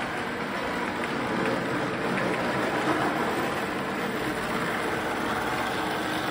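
Lionel O-gauge Pennsylvania GG1 model electric locomotive running on three-rail track while pulling freight cars: a steady motor whir and rattle of wheels on the rails, getting a little louder as it comes closer. The model has no horn or sound effects.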